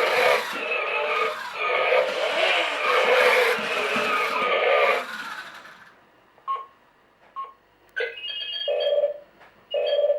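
Electronic sound effects from the U Command BatPod toy's small built-in speaker. A dense, engine-like effect plays for about five seconds and fades away, followed by short tinny bleeps and then clipped, pitched bursts of sound.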